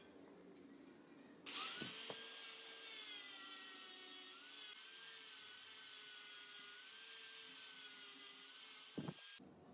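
Angle grinder with an abrasive disc grinding the steel hammer head, throwing sparks: a loud, steady whining hiss that starts abruptly about a second and a half in and stops suddenly near the end.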